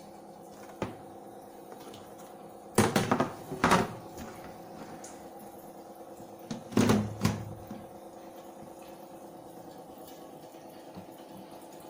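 Two short bursts of knocking and clatter, about three seconds and about seven seconds in, as the washing machine's lid and the shoes going into it are handled, over a steady hum.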